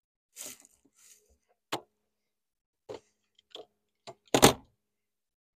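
A few sharp clicks and knocks, then one heavier thump about four seconds in: an angler handling gear on the deck of a bass boat.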